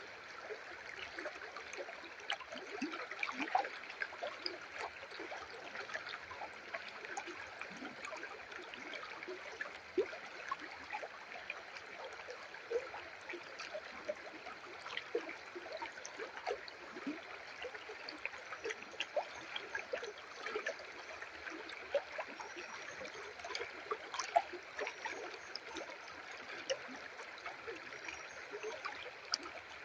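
River water flowing steadily: a constant rush with many small gurgles and splashes scattered through it.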